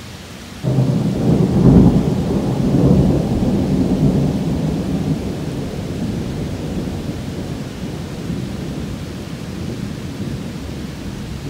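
Thunder over steady heavy rain: a clap breaks in suddenly less than a second in, is loudest about two seconds in, then rolls on as a rumble that slowly fades.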